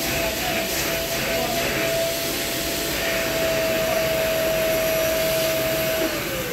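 A car wash machine's electric motor running with a steady whine and hiss. Near the end the whine falls away in pitch as the motor winds down.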